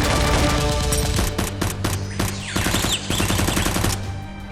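Rapid automatic gunfire sound effects, shot after shot in quick bursts, laid over background music with a steady low bass. The firing dies down near the end.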